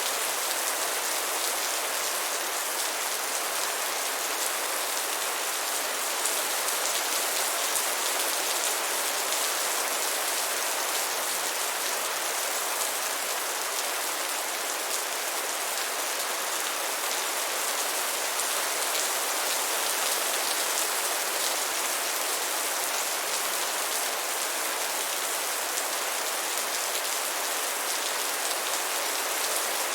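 Steady rain: a dense, even hiss of falling drops that holds at one level, with no thunder.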